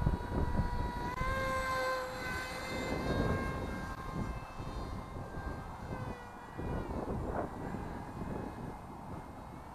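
Electric motor and propeller of an RC flying wing whining in flight. The pitch steps up twice early on as the throttle is opened, then drops after about six seconds as it is throttled back. Low wind buffeting on the microphone runs throughout.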